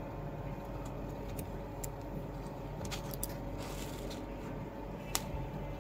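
Quiet room background: a steady low hum with a few faint, short clicks, one of them a little sharper a little after five seconds.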